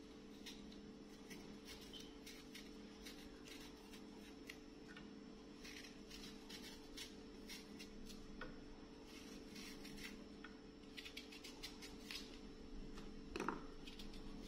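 A kitchen knife cutting and peeling a fresh apple held in the hand: faint, irregular crisp snicks and scrapes of the blade through the skin and flesh. There is a louder knock near the end.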